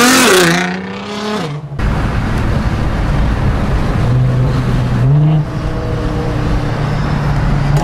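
Tuned Nissan GT-R's twin-turbo V6 with new downpipes and intakes, accelerating hard: its engine note is at its peak at the start and falls away over the first second and a half as the car pulls past. After an abrupt cut comes a steadier mix of engine drone and road noise at highway speed, with a brief rise in engine pitch about four to five seconds in.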